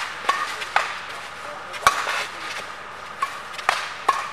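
Badminton rackets striking a shuttlecock in a fast doubles rally: about six sharp hits, the loudest about two seconds in, over steady background noise from the crowd.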